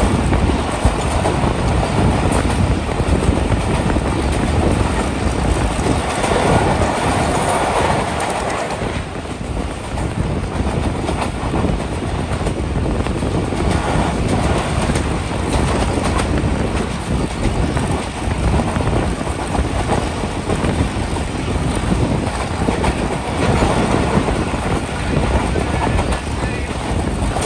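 Passenger train running along the track, its wheels clattering over the rail joints under a steady loud rumble.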